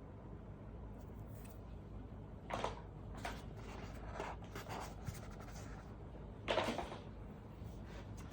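Tablet packaging being handled: a few short scrapes and rustles, the two loudest about two and a half and six and a half seconds in, over a steady low hum.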